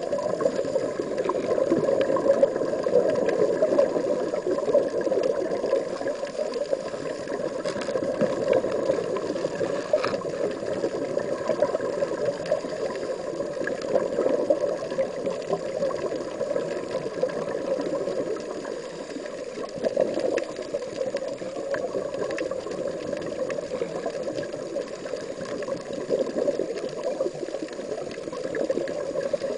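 Steady underwater noise: a continuous bubbling, gurgling rush of water picked up by a submerged camera.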